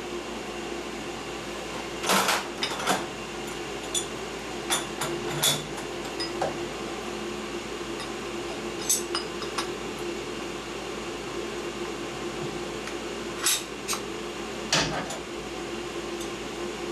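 Scattered metallic clinks and knocks as steel parallels and a 1/4-inch aluminium plate are set into a machine vise, over a steady machine hum.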